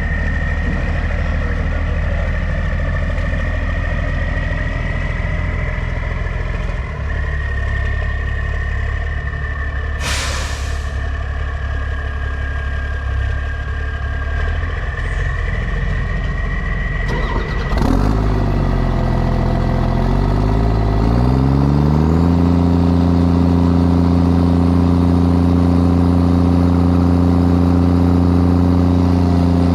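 Diesel semi truck engine running steadily, with two short hisses of air about ten and eighteen seconds in. After the second hiss the engine pitch dips and then climbs, holding a steady higher speed to the end.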